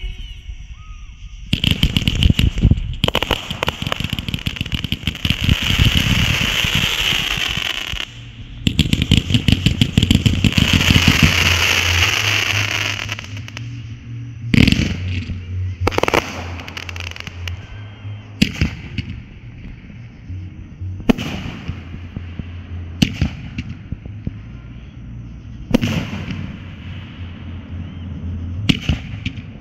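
Consumer fireworks going off: about 12 seconds of rapid crackling and popping bursts, followed by single loud aerial bursts every two to three seconds.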